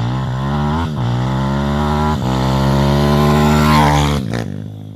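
Zongshen 160cc four-stroke single-cylinder pit bike engine revving hard through the gears, its pitch dropping at two shifts and climbing again, then cutting out abruptly about four seconds in as the bike locks up and stops dead. Those present suspect the chain has come off.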